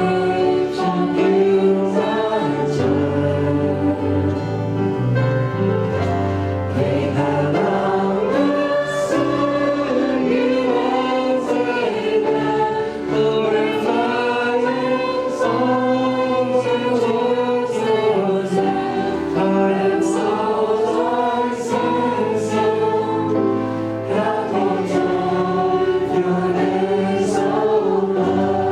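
Worship music: a group of voices singing a gospel-style hymn together over instrumental accompaniment with a sustained bass line.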